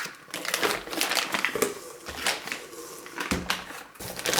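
Packaging handled: plastic wrap crinkling and rustling, with irregular clicks and light knocks as boxed filament spools are moved.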